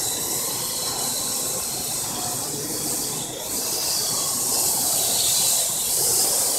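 Quadcopter drone hovering, its spinning rotors making a steady high hiss that grows a little louder in the second half.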